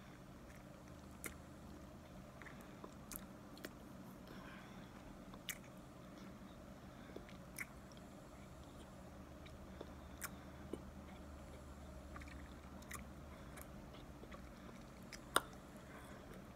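Quiet chewing and crunching of a mouthful of raw cornstarch mix, with a dozen or so sharp little clicks scattered through it, the loudest about fifteen seconds in.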